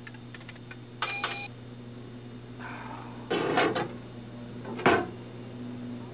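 A few light keyboard keystrokes, then a short electronic computer beep about a second in. Past the middle a desk drawer is pulled open with a rattling slide, followed by a sharp knock about five seconds in.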